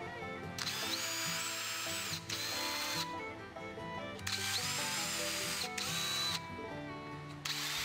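Electric drill boring through a jigsaw's steel base plate into plywood, run in three bursts: each time the motor whine rises as it spins up, holds steady, then falls away as it stops.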